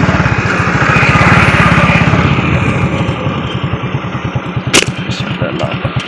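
An engine running steadily with a fast, even pulse, and a sharp click a little before the end.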